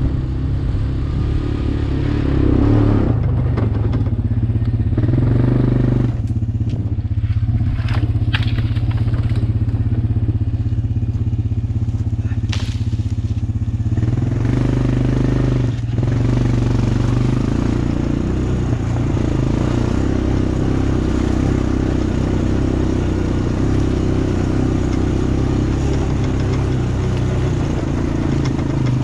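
Honda Recon ES 250 ATV's single-cylinder four-stroke engine running at low trail speed. The throttle eases off for several seconds partway through, then it pulls again. A few sharp cracks and crackles come from dry leaves and twigs under the tyres.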